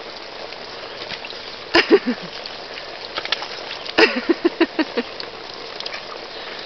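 Water spraying in a steady hiss from a jet at the top of an above-ground pool's cartridge filter pump, which is having the air bled out of it after a filter change. About two seconds in, and again in a quick run of about six pulses a second later, short pitched cries cut through.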